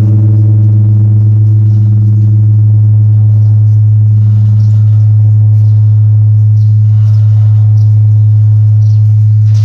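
Huge five-ton bronze bell, newly assembled and being test-rung, ringing on after a strike: a loud, deep, steady hum with higher overtones that slowly fade while the low tone holds.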